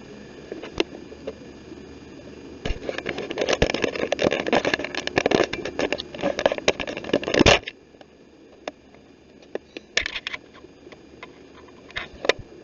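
Dense crackling and scraping with many sharp clicks for about five seconds, cutting off abruptly, then a few isolated clicks.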